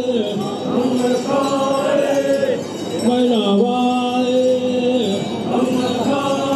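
Voices chanting in long held notes, each sustained for a second or two, with the pitch stepping down at the end of each note and short breaks between notes.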